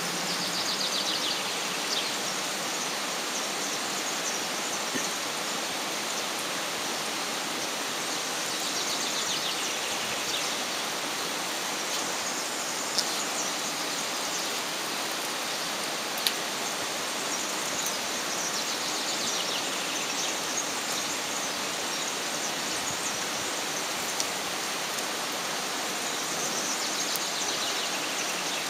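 Steady, even rushing background noise with no speech. A few faint, high, falling chirps and two or three small clicks stand out from it.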